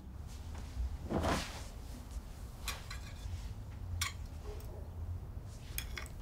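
Fork clinking lightly against a dinner plate a few times while eating, after a soft rustle of someone settling onto a couch about a second in, over a low room hum.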